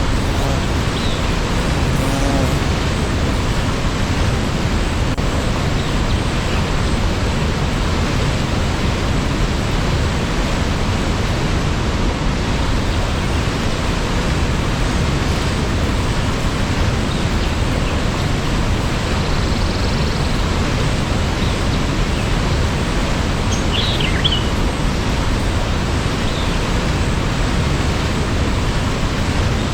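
Waterfall rushing in a steady, even roar of falling water, with a brief faint high chirp about three-quarters of the way through.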